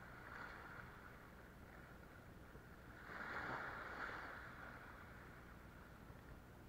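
Faint sea water lapping against shoreline rocks, with one wave surging and washing over the rocks about three seconds in.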